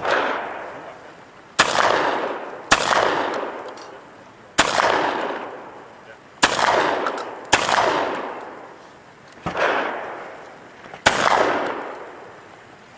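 Shotgun firing eight shots at an uneven pace, about one to two seconds apart. Each blast is followed by an echo that dies away over about a second.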